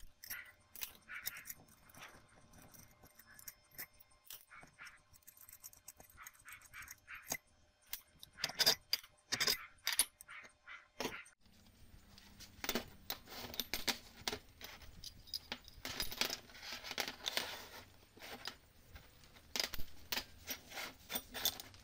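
Steel nuts, washers and vise parts clinking and clattering as they are unscrewed by hand, lifted off and set down on a steel workbench. About eleven seconds in, steel square tubing and threaded rods start knocking against the bench as they are handled.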